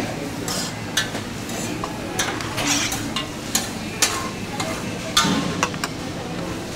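Steady sizzle of food frying on a hot griddle, with irregular clinks and scrapes of a spoon against stainless steel containers as toppings are spooned out.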